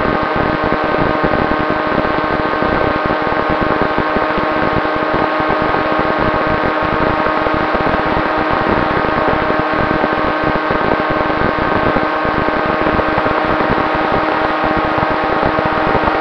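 Electric motors and propellers of an FPV aircraft holding a steady whine in flight, with wind buffeting the onboard camera's microphone.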